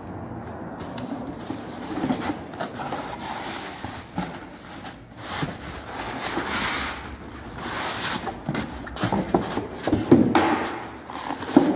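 Packaging being handled while a car subwoofer is unboxed: plastic wrap and a cardboard box rustling and scraping, then styrofoam packing blocks rubbing and knocking, with the loudest knocks near the end.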